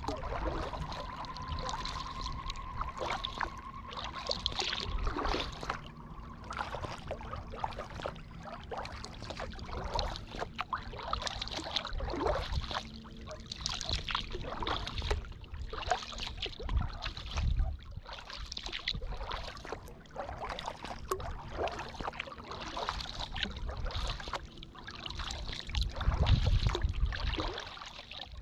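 Kayak paddle strokes, the blades dipping, pulling and dripping in a steady run of splashes, with water trickling off the paddle and lapping at the hull.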